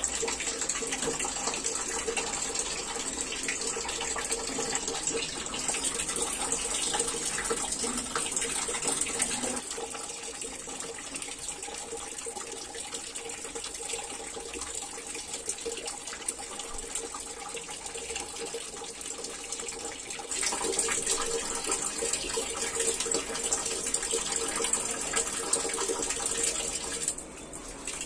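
Water running from a tap and splashing over hands being washed with soap. It is louder for about the first ten seconds and again from about twenty seconds in, dropping shortly before the end.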